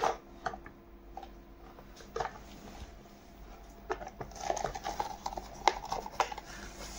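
Hard plastic toy parts clicking and knocking as a toy pickup truck's body is pressed down onto its chassis. A few separate clicks come first, then a quick run of clicks near the end.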